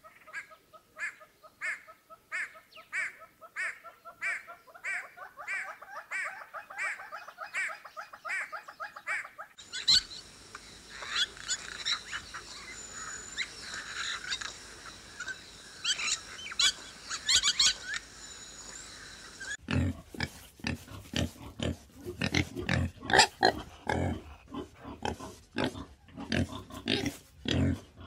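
Animal calls in three clips cut together: first a regular series of short pitched calls about two a second, then a stretch of clicks and high chirps, and from about two-thirds of the way in a run of short, sharp, deeper sounds.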